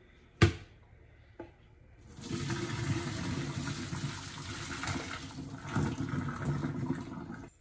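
Hot pasta water poured from a saucepan through a plastic colander into the kitchen sink: a steady splashing gush that starts about two seconds in and stops just before the end. A sharp knock comes shortly before the pouring starts.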